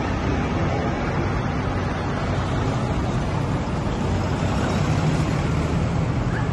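Heavy vehicle engines running at a steady speed with road noise, without revving.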